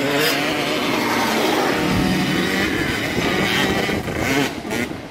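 Dirt bike engines revving, their pitch climbing and falling with the throttle, a little quieter near the end.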